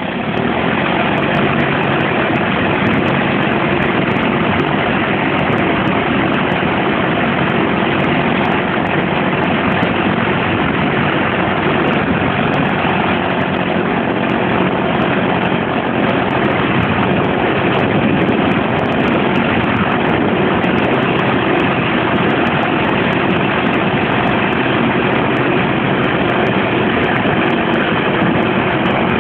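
Homebuilt single-engine light aircraft's engine and propeller running steadily, loud and unchanging throughout.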